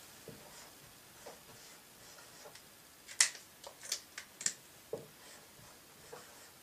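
Dry-erase marker writing on a whiteboard: faint strokes, with a quick cluster of sharper strokes or clicks a little past halfway.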